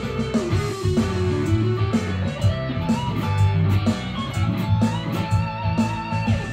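Electric guitar solo: a lead line with string bends and a held note with vibrato near the end, over a backing track with bass and drums.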